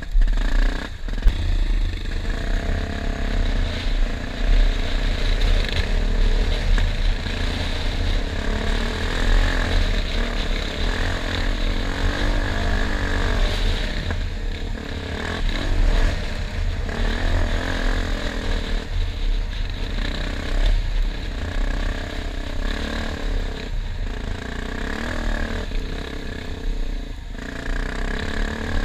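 Enduro motorcycle engine running while being ridden, its revs rising and falling steadily throughout, with a heavy low rumble underneath.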